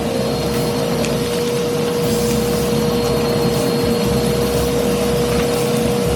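Kärcher WD2 wet and dry vacuum cleaner running steadily, its 1000 W motor giving a steady whine over the rush of air through the hose.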